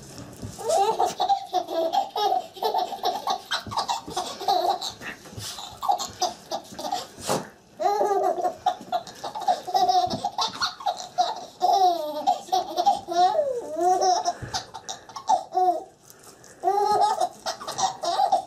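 Baby laughing hard in high-pitched runs of giggles, over and over, with short breaks about seven and sixteen seconds in.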